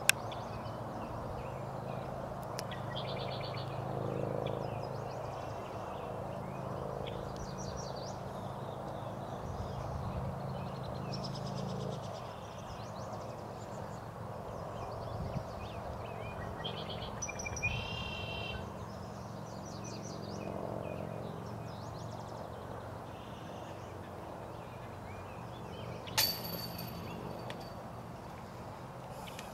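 Outdoor ambience: birds chirping on and off over a steady low hum that stops about twelve seconds in. A single sharp knock near the end is the loudest sound.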